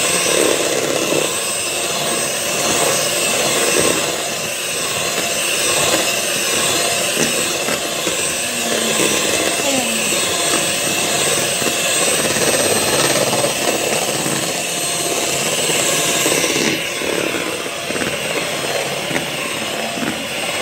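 Electric beater running steadily, its twin beaters whipping chilled whipping cream in a plastic bowl as it reaches stiff peaks. Near the end the high hiss thins a little.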